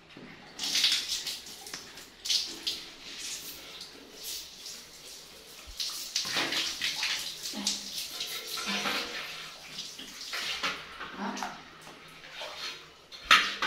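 Repeated, irregular splashing and sloshing of water in a plastic baby bathtub as a baby monkey wades and paddles in it.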